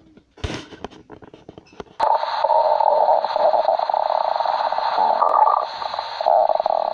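Cartoon stomach-growl sound effect: a long, loud, rough growl that starts abruptly about two seconds in and stops suddenly at the end, after a brief burst and a few clicks.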